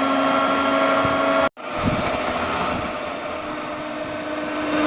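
Electric hand beater running steadily at low speed with a motor whine, whipping instant coffee, sugar and hot water into a foam. The sound breaks off for an instant about a second and a half in, then resumes at a slightly higher pitch.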